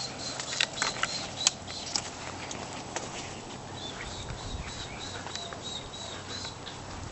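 Footsteps crackling on dry leaf litter and sticks in the first second and a half, then a bird calling a quick run of short, high, repeated notes from about four seconds in.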